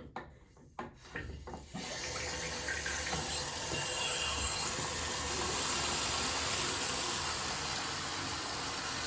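A few light knocks, then, about two seconds in, a tap running steadily, filling a laundry basket of dirty clothes with water.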